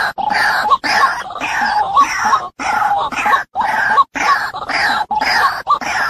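White-breasted waterhen (ruak-ruak) calling, a harsh croaking 'kru-ak' repeated about twice a second, from a bird-trap lure recording.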